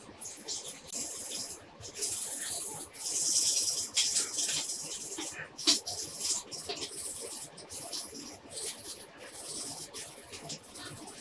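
Wet sandpaper rubbing back and forth over a black plastic lens barrel in water: an irregular, hissing scrape, loudest a few seconds in.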